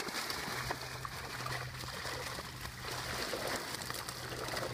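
Water streaming and trickling out of a fishing keepnet's mesh as the net, full of fish, is hauled up out of the canal.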